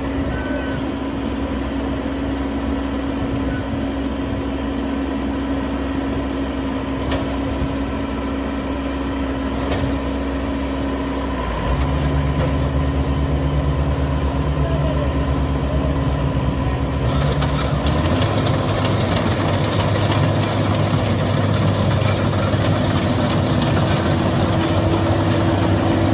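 Engine of a Maxxi Bimo 102 rice harvesting machine running steadily. Its speed steps up about 11 seconds in and again about 18 seconds in, getting louder each time, and a louder rushing noise joins from about 17 seconds in.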